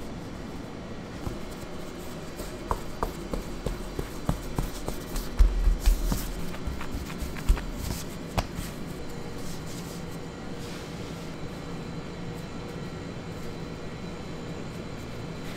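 Handling noises: a run of light clicks and knocks with a dull thump about five and a half seconds in, over a steady background hum.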